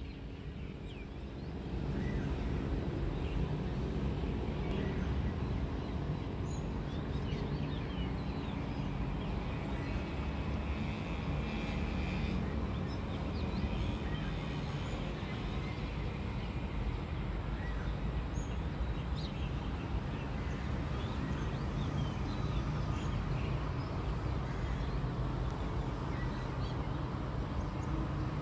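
Steady low rumble of distant city traffic, growing louder about two seconds in, with birds chirping now and then.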